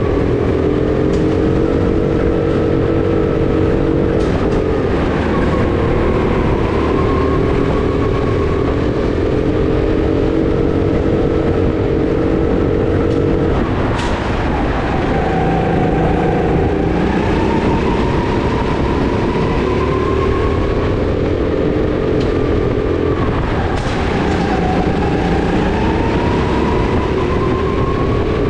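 Onboard sound of a racing go-kart's motor driven flat out, its pitch rising and falling with the throttle. The pitch drops sharply about halfway through and again near the end as the kart slows for corners, then climbs again.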